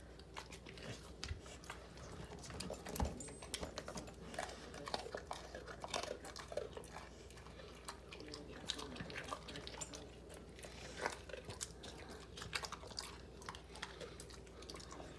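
Pit bull chewing and crunching a cookie: many irregular crunches, the loudest about three seconds in.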